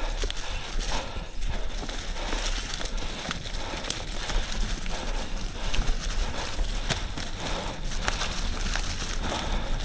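Yeti SB 150 29er mountain bike riding down a dirt trail: tyres rolling and crunching over the ground, with frequent short knocks and rattles from the bike over bumps, over a steady low rumble.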